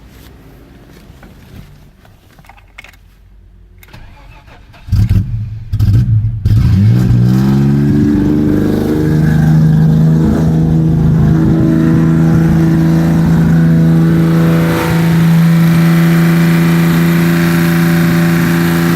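BMW E34's M20B20 inline-six being cranked by the starter in two short bursts about five seconds in, then catching and climbing straight to a fast, steady high idle instead of settling to a normal idle: the engine's fault of running up to about 3000 rpm on its own.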